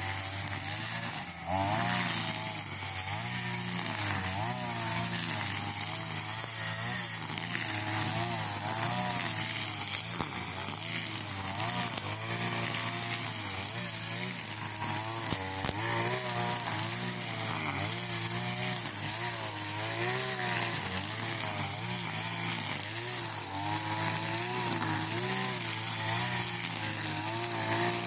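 Petrol two-stroke string trimmer running at high speed, its engine note rising and falling over and over as it cuts grass.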